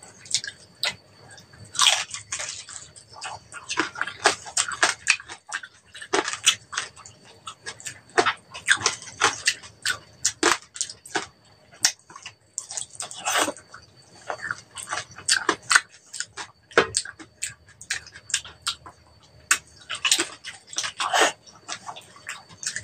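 Chewing and biting of crispy roast pork head: a dense, irregular run of crunches and wet mouth clicks.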